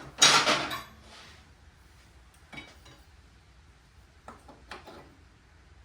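A loud metallic scrape and clatter, about a second long, right at the start, then a few faint knocks. The sound is of the rear wheel of a BSA unit-single motorcycle being worked off its splined hub.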